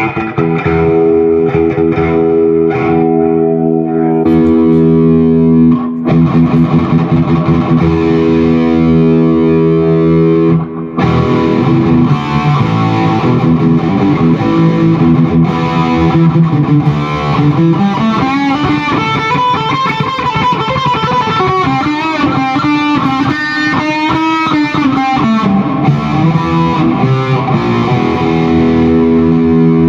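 Distorted electric guitar played through a Zoom G1X Four multi-effects pedal into a Peavey 6505+ combo amp: a long ringing chord, then a riff with string bends that rise and fall in pitch partway through.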